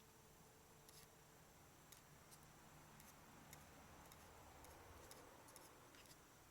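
Faint, scattered crackles and pops of a wood campfire, irregular and roughly a second apart, over near silence.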